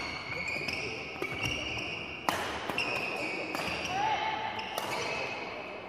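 Badminton rally: rackets striking the shuttlecock back and forth in quick succession, a dozen or so sharp hits with the loudest about two and a half seconds in, and short squeaks of court shoes on the wooden floor.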